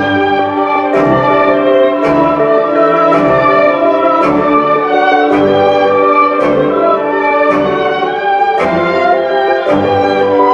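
Background music: an orchestral piece with violins over a steady beat that is marked about once a second.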